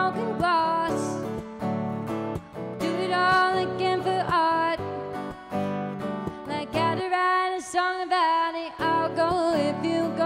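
A woman singing a pop song live while strumming an acoustic guitar. About two-thirds of the way through, the guitar stops for a couple of seconds while her voice carries on alone.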